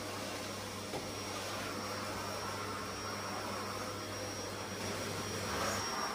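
Bagless cyclonic canister vacuum cleaner running steadily with a thin high whine over its rushing air noise, its floor head pushed back and forth over a flat-woven rug.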